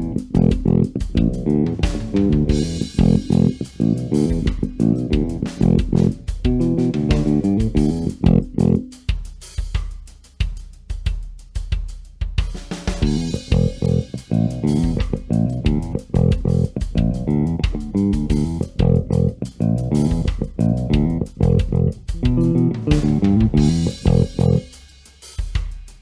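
Gretsch G2220 Junior Jet II short-scale electric bass, with its single-coil pickups, played fingerstyle in a busy riff of quick notes with the tone knob rolled off to 0%, both neck and bridge pickups on. The playing stops for about two seconds around nine seconds in, then the riff starts again.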